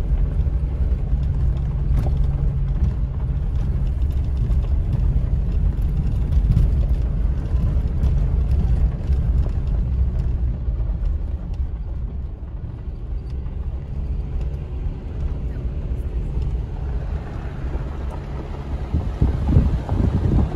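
VW Touareg driving slowly on a gravel mountain track, heard from inside the cabin: a steady low rumble of engine and tyres on gravel, with occasional faint ticks.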